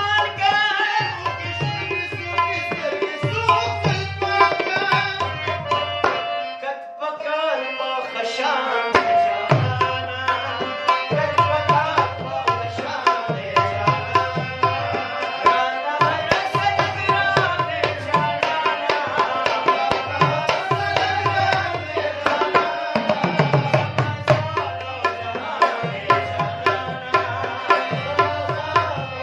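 A man singing a ghazal to tabla accompaniment, the tabla's bass drum giving deep strokes that slide down in pitch. The drumming drops out briefly about six seconds in, then resumes.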